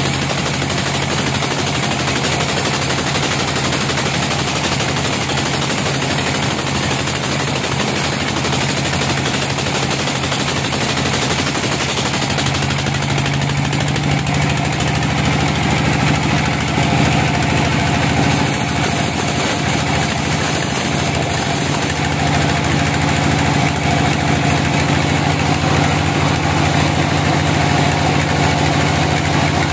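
A bandsaw mill runs steadily as its blade saws slabs off a log. The machine's low hum gets louder from about twelve seconds in.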